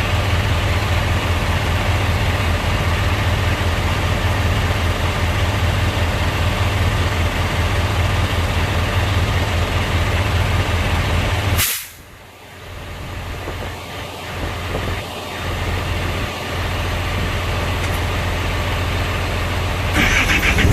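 A diesel engine running steadily at idle. About twelve seconds in a short, sharp burst of sound comes and the engine noise drops away suddenly. Quieter sounds follow and build back up, and a loud running noise returns near the end.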